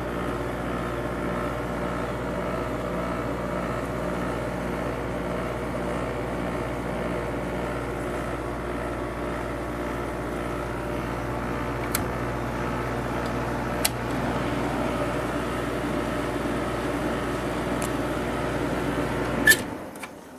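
Vintage GE 6,000 BTU window air conditioner running steadily, its GE rotary compressor and fan making a constant hum with a low drone and the rush of air. Near the end a sharp click, and the running sound drops away abruptly as the unit is switched off.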